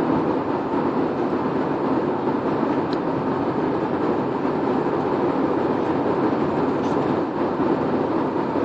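Steady roar of airliner cabin noise in flight: engine and rushing-air noise heard from inside the cabin, with a faint steady hum.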